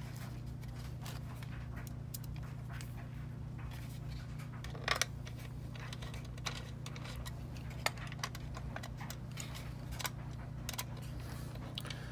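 Scattered light clicks and taps of hard plastic parts being handled and fitted together by hand, with a small screw being driven into the plastic; a steady low hum underneath.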